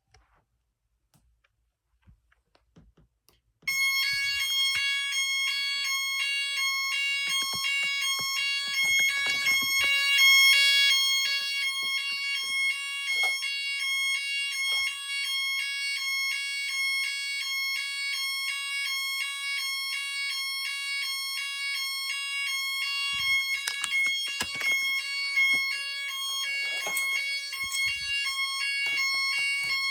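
A 12-volt fire alarm siren goes into alarm about four seconds in, after near silence. It sounds a loud, high-pitched electronic tone that pulses rapidly and evenly and keeps going without a break.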